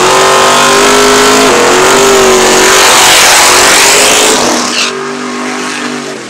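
Fox-body Ford Mustang drag car doing a burnout: the engine is held at high, steady revs with the rear tyres spinning and hissing against the track. After about four seconds the revs drop and it runs on at a lower note that fades out near the end.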